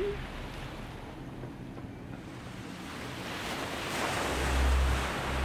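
Outdoor river ambience of water washing and wind buffeting the microphone, swelling about four seconds in. A low hum comes in near the end.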